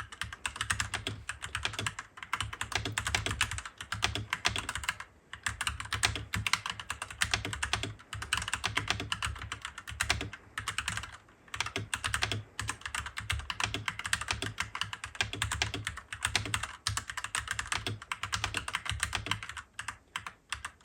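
Fast, continuous typing on a Royal Kludge RK98 mechanical keyboard with linear red switches, a rapid stream of key clicks with a few brief pauses.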